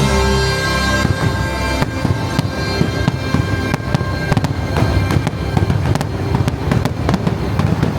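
Fireworks going off in rapid succession, many sharp cracks and pops coming thicker toward the end, over the show's orchestral music, whose held chord fades out in the first two seconds.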